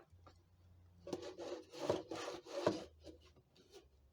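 X-Acto craft knife rasping and scraping into the wall of a container as a cut is started: a run of several scraping strokes lasting about two seconds, then a few faint ticks.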